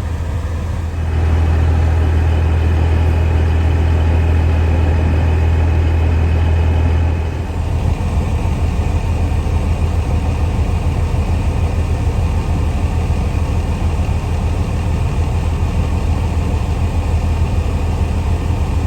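Combine harvester's diesel engine running steadily as a deep hum. It gets louder about a second in and drops back a little after about seven seconds.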